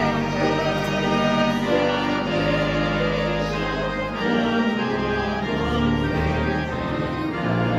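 Organ music: slow sustained chords over long-held bass notes, changing every couple of seconds.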